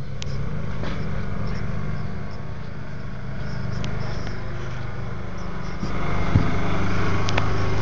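Arctic Cat Wildcat 1000's V-twin engine idling steadily through its stock muffler, a little louder past the middle as the exhaust comes close.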